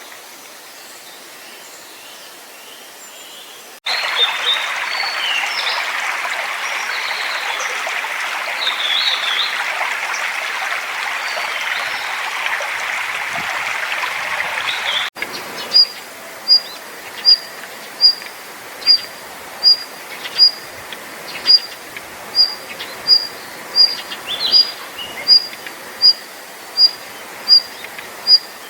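Wild small songbirds in a mountain forest, in three cut-together recordings. The middle one has scattered high chirps over the loud steady rush of a stream. The last is one bird repeating a single high, short note at an even pace, a little faster than once a second.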